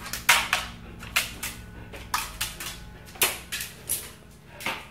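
Irregular clicks and taps of footsteps on tiled stairs, a few a second, some sharper and louder than others.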